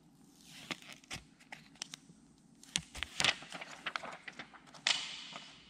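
Thin printed protective film being peeled off a new Oppo A16 smartphone's screen: a run of crackles and sharp clicks with hissy rasps of plastic coming away, the longest rasp just before the end.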